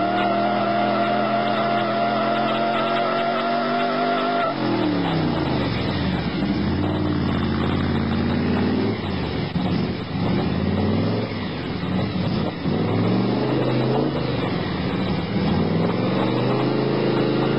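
Big-block Chevy V8 engine of a lifted 1968 Chevy pickup held at high revs in a burnout, with the tires squealing steadily. About four and a half seconds in the squeal stops and the revs drop, then the engine is revved up and down again and again.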